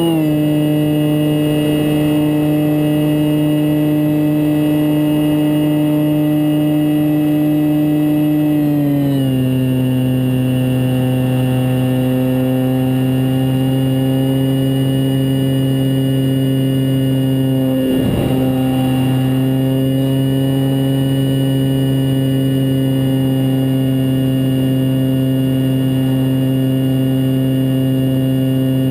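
Multiplex Mentor RC plane's electric motor and propeller droning, heard close up from the plane itself. The steady whine drops in pitch right at the start and again about nine seconds in as the throttle is eased back, wavers briefly about eighteen seconds in, then holds steady, with a light rush of air behind it.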